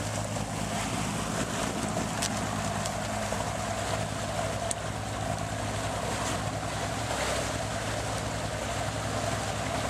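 A 42-foot Grand Banks motor yacht's engines drone steadily while the boat is underway, with water rushing along the hull and wind buffeting the microphone. A few light clicks come from the wire crab pot and rope being handled.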